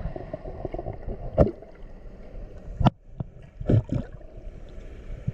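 Muffled water noise, with a few sharp sloshing bursts, the strongest about a second and a half, three and four seconds in.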